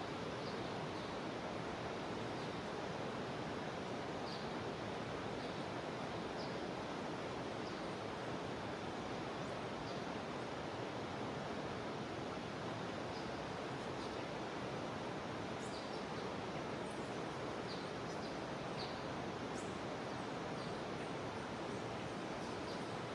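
Jungle river flowing with a steady, even rush of water, with short high chirps from small creatures dotted over it now and then.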